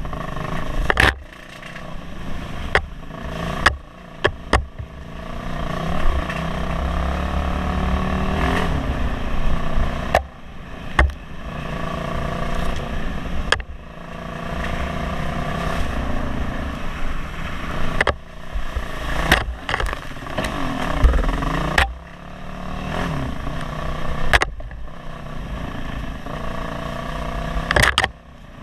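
Off-road motorcycle engine running on a rough trail, its pitch repeatedly rising and falling as the throttle opens and closes. Frequent sharp knocks and clatter are scattered throughout.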